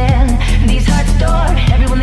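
Background music: a hip hop or pop track with a heavy bass beat and sung or rapped vocals.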